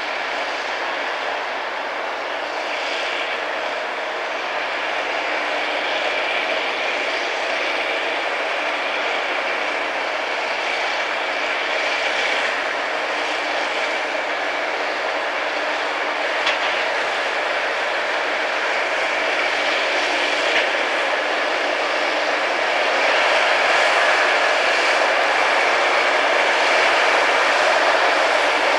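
Rail grinding machine working along the track, its grinding wheels on the railhead making a steady, harsh grinding noise with a faint high whine in it. It grows louder toward the end as the machine comes closer.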